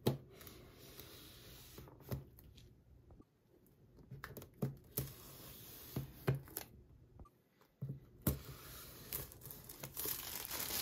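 Clear plastic shrink-wrap on a laptop box being slit with a small blade and torn, with sharp clicks along the way, then crinkling loudly as the film is peeled away near the end.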